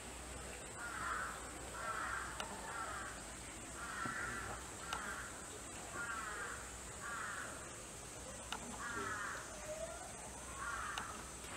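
A bird calling over and over, a dozen or so short calls about one a second, over a steady high hiss.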